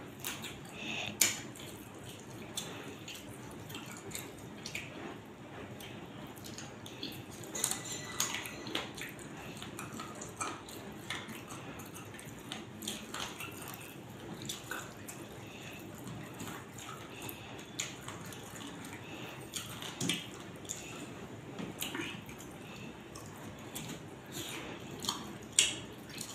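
Wet eating sounds: fingers squelching parotta soaked in chicken shorva on a steel plate, with chewing, heard as scattered sharp clicks and squishes over a steady hiss.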